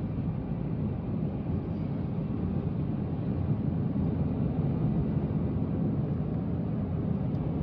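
A car driving along a road: a steady low rumble of road and engine noise with no distinct events.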